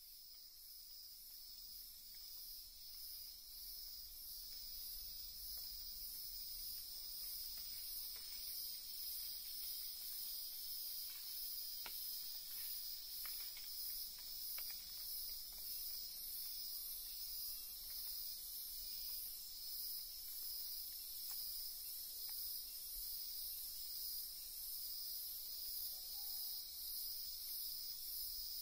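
Insect chorus: a continuous high-pitched drone with a shriller, evenly pulsing layer above it, fading in over the first few seconds.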